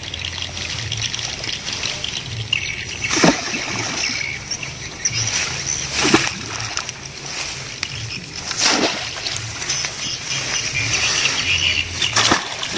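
A long wooden pole plunged into shallow, muddy canal water, making a splash with each stroke. There are four strokes, about three seconds apart, poking the water to drive fish into a gill net.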